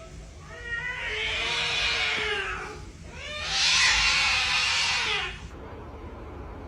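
A domestic cat yowling: two long, drawn-out calls, the second louder.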